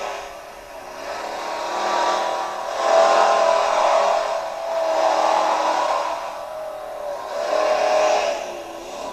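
Modified tractor-pulling tractor engine running hard under load during a pull, its pitch wavering and its loudness swelling and easing several times.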